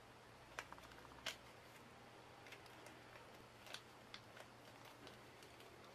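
Near silence: room tone with a faint steady hum and a few faint, irregular ticks.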